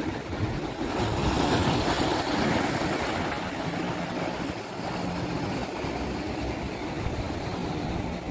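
Sea waves washing, with a rushing swell between about one and three seconds in and wind noise on the microphone. A faint low steady hum runs underneath from about four seconds in.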